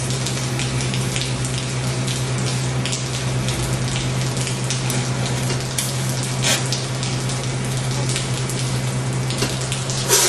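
Electric arc welding on a steel bracket: a dense, continuous crackle over a steady low electrical hum, with a louder crackle near the end.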